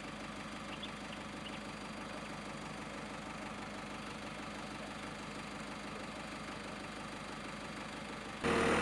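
Loader's diesel engine idling steadily with a low, even clatter. Near the end the sound jumps suddenly louder.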